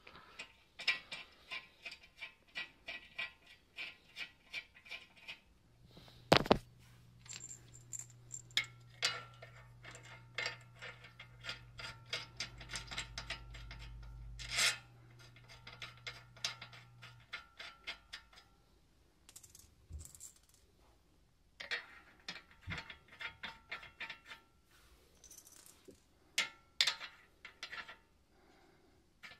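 Rapid metallic clicking and light ringing as black conversion studs and lug nuts are turned by hand on a bare wheel hub. There is a sharp knock about six seconds in, and a low hum for about ten seconds through the middle.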